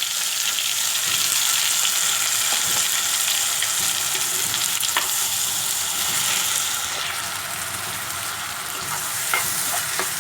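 Ground onion paste frying in hot oil with mustard seeds and dried red chillies, stirred in the pan: a steady sizzle with a few light clicks of the stirring spoon against the pan.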